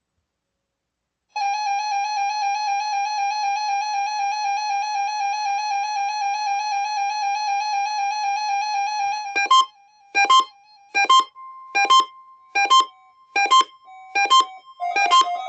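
Electronic keyboard music. A single held note with a slight waver lasts about eight seconds and starts after a second of silence, then gives way to short, detached chords struck about once every 0.8 s.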